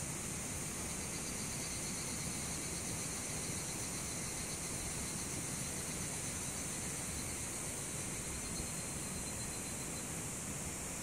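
Higurashi (evening cicadas) calling in a steady, high-pitched chorus over a constant background hiss.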